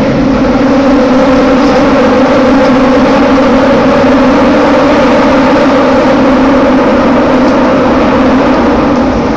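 Toei Ōedo Line linear-motor subway train running through a tunnel, heard from inside the car: a loud, steady rumble with a constant drone.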